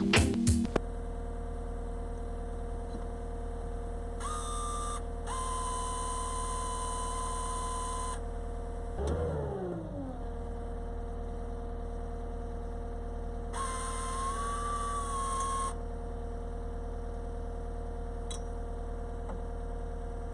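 A steady mechanical hum, joined twice by a high whine with hiss that lasts a few seconds each time, and a short falling whine about halfway through.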